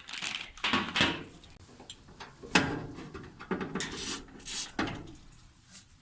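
Irregular handling noises: rubbing and scraping of hard objects, with a sharp click or knock about two and a half seconds in.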